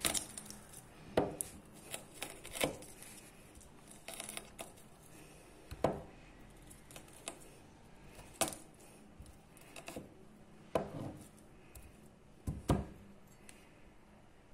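Drinking glass pounded and pressed down onto peeled garlic cloves to crush them: a dozen or so sharp knocks, irregularly spaced a second or two apart, with light scraping between them.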